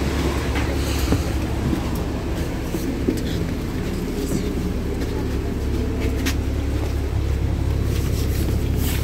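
LiAZ-6213.65 articulated city bus under way, heard from the passenger cabin: a steady low rumble of engine and road noise, with a few brief rattles from the cabin fittings.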